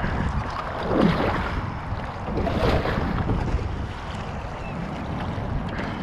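Kayak running a shallow whitewater riffle: water rushing and splashing around the hull and paddle, with two louder splashes about a second in and midway through, over some wind noise on the microphone.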